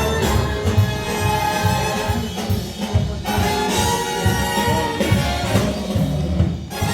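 Recorded orchestral music with brass, played back through a hi-fi demo system.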